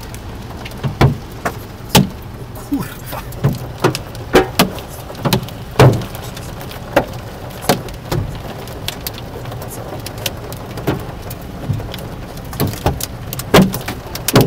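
Hail and heavy rain hitting a car's windshield and roof, heard from inside the cabin: a steady hiss of rain with irregular sharp clacks of hailstones striking, the loudest about one or two a second.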